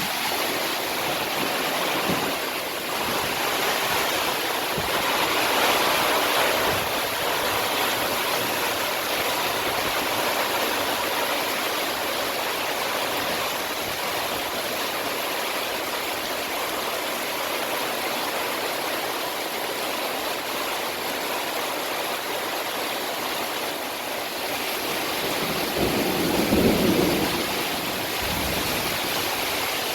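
Heavy rain pouring down in a steady, loud hiss, with a brief louder, deeper swell near the end.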